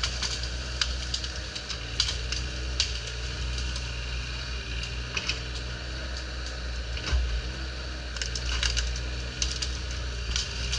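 Bobcat E35 mini excavator's diesel engine running steadily, with repeated sharp cracks and snaps of wood and branches splintering as the bucket pushes into a pine tree.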